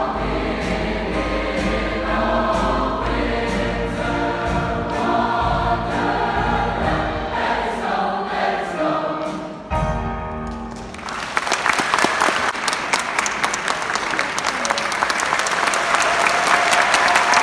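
Large choir singing. The song ends about ten seconds in, and an audience starts clapping, with the applause growing louder.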